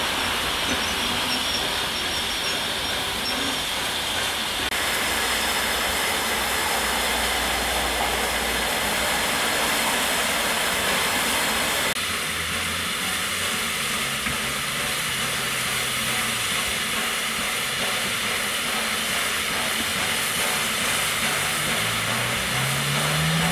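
Peppercorn A1 Pacific steam locomotive 60163 Tornado standing with its train, steam hissing steadily. Near the end a low tone rises in pitch.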